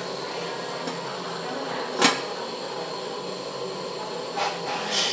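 A cooking utensil knocks once sharply against cookware about two seconds in, with a few lighter clinks near the end, over a steady background hiss.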